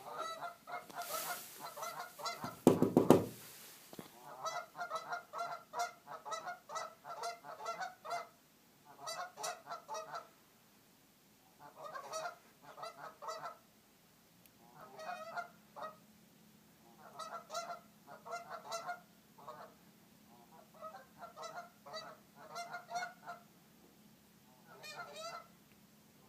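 Geese honking in quick runs of repeated calls, in clusters with short pauses between them. About three seconds in, a much louder, deeper sound stands out briefly.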